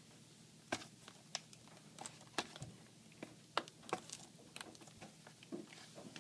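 Scattered light clicks and taps of hands handling a laptop's plastic case, about a dozen irregular ticks.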